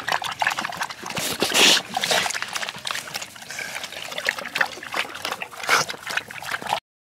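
Two American bully dogs lapping water from a metal stockpot: a quick, irregular patter of slurps and splashes, loudest about one and a half seconds in. The sound cuts off suddenly near the end.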